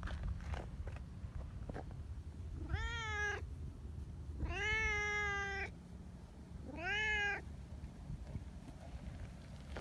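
Brown tabby cat meowing three times while its head is stroked; the middle meow is the longest and loudest.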